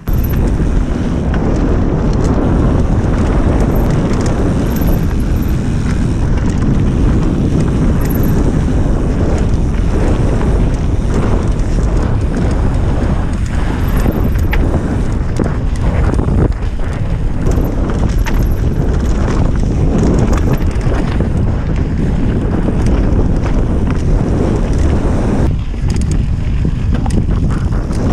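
Wind rushing over the microphone of a mountain bike's on-board camera at speed, with the tyres rumbling over the dirt trail and scattered clicks and rattles from the bike.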